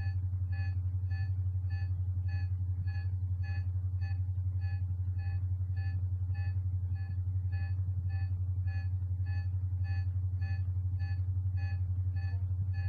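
Electronic film soundtrack: a steady low hum with short, high electronic beeps repeating evenly about twice a second. These are the control-signal tones that drove the film's motorised camera arm.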